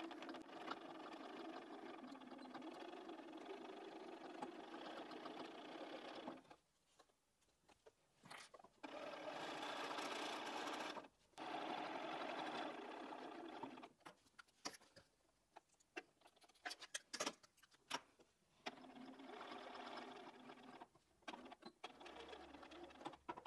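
Bernina B 570 QE sewing machine stitching binding onto a quilted cushion. It runs in four stretches of a few seconds each, with short stops between that carry small clicks.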